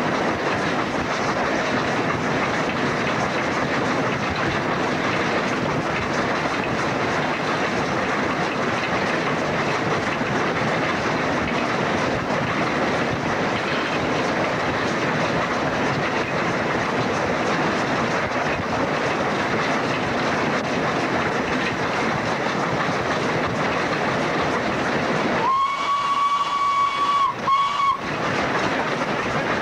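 LNER A3 Pacific 60103 Flying Scotsman running at speed, heard from its footplate as a steady rush of running noise. Near the end the locomotive's whistle sounds a single note, one long blast and then a short one.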